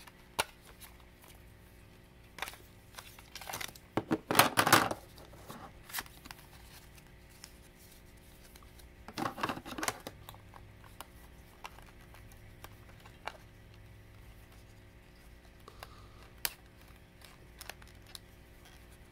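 Plastic Kamen Rider Dragon Knight Thrust Advent Deck toy being handled and worked open, with a card slid into it: scattered plastic clicks and scrapes, loudest in two short bouts of rattling about four and nine seconds in.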